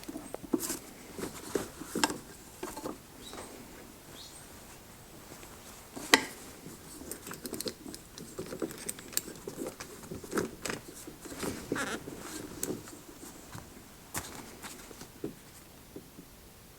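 Light, irregular clicks, taps and small knocks of tools and small metal parts being handled at a workbench, with one sharper knock about six seconds in.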